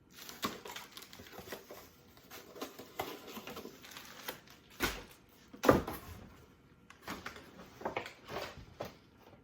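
Packaging being handled: irregular rustling and crinkling with small clicks, and two louder crackles about five and six seconds in.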